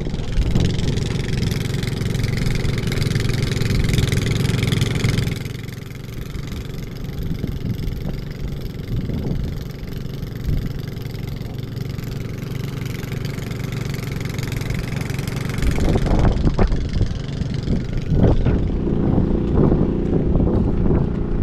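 A motor engine running steadily at a constant pitch. Near the end, wind buffets the microphone.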